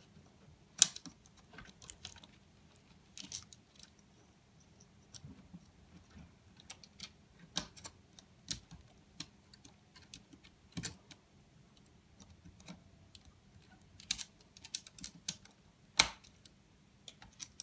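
Irregular small clicks and taps of hands fitting a small round speaker into the plastic housing of an alarm control panel, with two sharper clicks about a second in and near the end.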